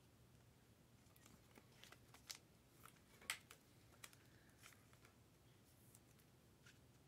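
Near silence with a scatter of faint clicks and light rustling from handling things at a desk. The sharpest clicks come about two and three seconds in.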